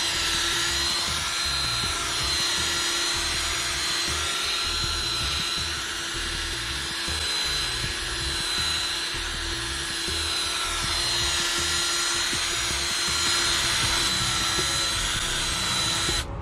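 Electric drill running steadily with a polishing pad, buffing polish onto a plastic vinyl decal. The motor whine wavers slightly in pitch, and it stops abruptly near the end.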